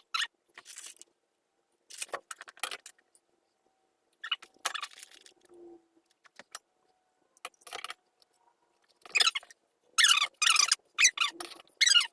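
Small metal hardware (bolts, nuts and washers) clinking and jangling as it is handled and sorted, in irregular bursts with pauses between, busiest and loudest near the end.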